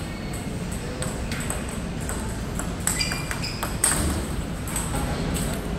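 Table tennis rally: a plastic ball clicking off rubber-faced paddles and the table several times, the loudest hit just under four seconds in, over a steady low background hum.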